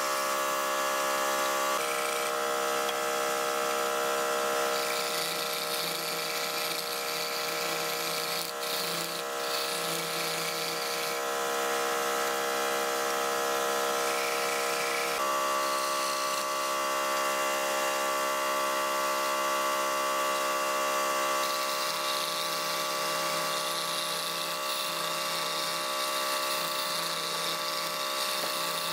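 Wood lathe motor running with a steady whine while a hand-held chisel cuts a spinning wooden spindle; the scraping hiss of the cut rises and falls over the hum.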